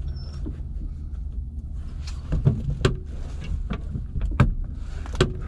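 Several sharp clicks and knocks from hands working the controls and panels of a parked helicopter cockpit during pre-start checks, over a steady low hum on the headset intercom audio.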